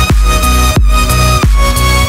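Background electronic dance music with a heavy bass and a steady beat.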